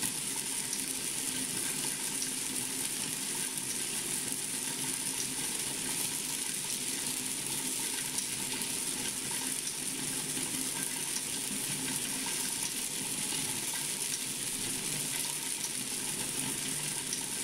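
Electric star roller turning steadily, rice puffs tumbling and rustling against the inside of its plastic bucket over a steady motor hum, as they are coated with black powder.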